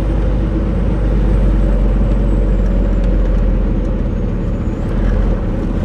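Semi truck's diesel engine running steadily as the rig creeps along at walking pace, heard from inside the cab as a low drone.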